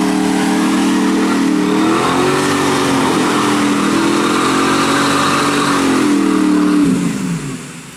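Lifted Chevrolet Silverado Z71 pickup's engine held at high revs as it spins its wheels through mud. The engine note shifts about two seconds in, then falls away near the end as the revs drop.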